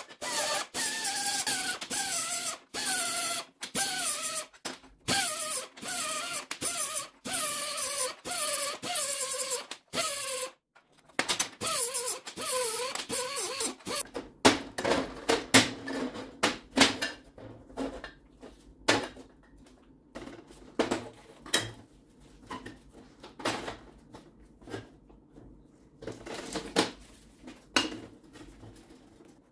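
Hand-tool work in a workshop: for about the first eleven seconds, even back-and-forth strokes at roughly one and a half a second, each with a squeal that falls in pitch. After that, scattered sharp knocks and clicks of parts being handled.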